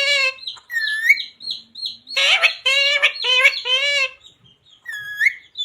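Pet parrot vocalising: a run of high-pitched calls, four in quick succession midway, with short high chirps and two rising whistles between them.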